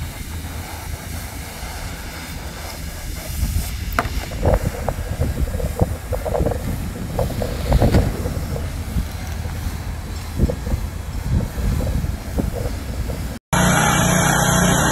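Automatic hot-air PVC roofing welders running: a steady low mechanical hum, with scattered clicks and knocks from about four seconds in. Near the end the sound cuts out for a moment and a louder, steady machine whir takes over.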